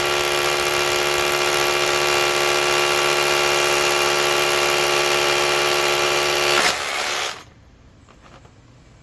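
Bosch GBH18V26 cordless 1-inch SDS rotary hammer drilling a hole with a 1/2-inch bit, running at a steady pitch; a little under seven seconds in it eases off for a moment and then stops.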